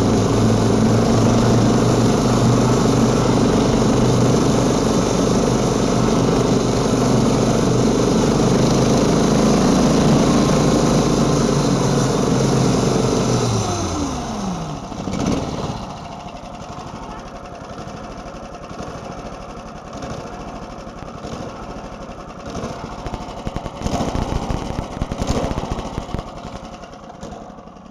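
Small engine of a homemade single-ski snow scooter running steadily under way, then its pitch falls away and it dies about fourteen seconds in. Scattered knocks and rattles follow.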